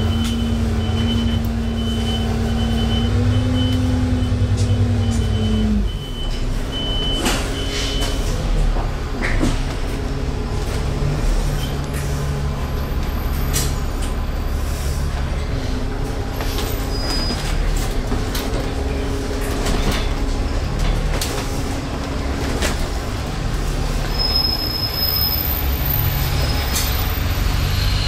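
Engine and interior noise of a double-decker bus heard from a passenger seat as it drives through town: a steady low engine drone whose note drops about six seconds in, with scattered knocks and rattles from the body.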